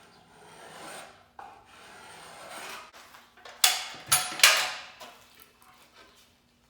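Spokeshave cutting along the edge of a wooden fan blade: two long, even shaving strokes, then three short, sharper strokes about halfway through, which are the loudest.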